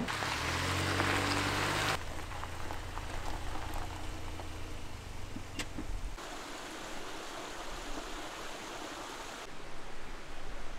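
Suzuki Jimny JB64's small turbo three-cylinder engine running as it drives over gravel. The engine hum fades out about six seconds in, leaving the steady rush of a mountain stream.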